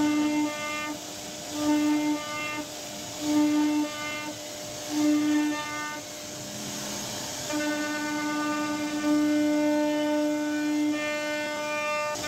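CNC router spindle whining as its bit carves a rope-twist pattern into a wooden door panel. The cutting tone swells in short pulses about every second and a half, then holds for a longer pass of about three and a half seconds near the middle, over a steady hiss.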